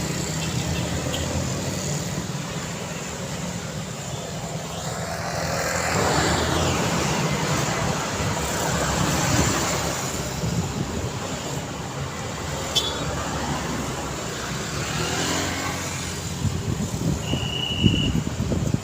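Busy city road traffic: engines running and vehicles passing by one after another, swelling louder as they go past. A short high beep sounds near the end.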